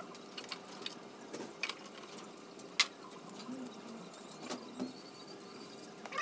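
Scattered light clicks and taps from handling a scooter's plastic body panels, with one sharp click about three seconds in.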